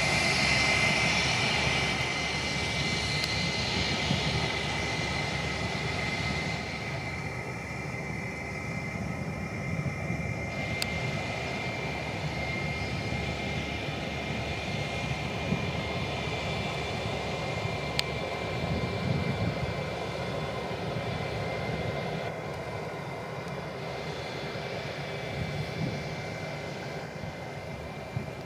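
Jet engines of an Airbus A320-family airliner running on the runway: a steady high whine over a low rumble, slowly getting quieter.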